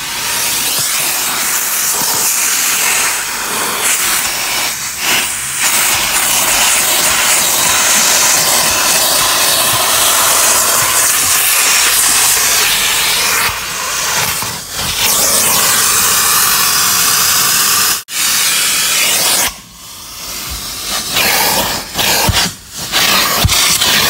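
Vacuum cleaner sucking through a crevice nozzle over car door sills and floor carpet, a steady airy hiss. About three-quarters of the way through it cuts out briefly, then rises and falls unevenly as the nozzle is moved over the carpet.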